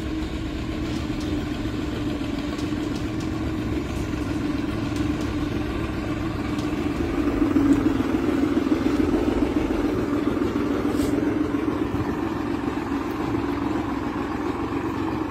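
New Holland farm tractor's diesel engine running steadily as it hauls a trailer piled with hay bales, growing louder for a moment about halfway through.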